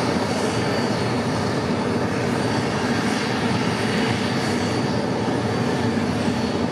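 Dassault Falcon 50 business jet's turbine running steadily: an even, dense noise with a thin high whine over it that fades after about two seconds.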